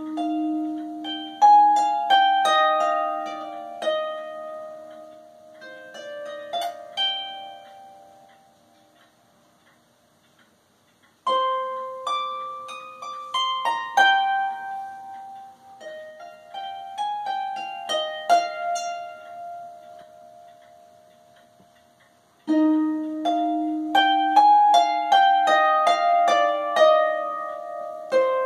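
Harp played solo, plucked notes ringing on in three phrases. The strings are left to ring and die away almost to silence about ten seconds in, and again just after twenty seconds, before the next phrase starts.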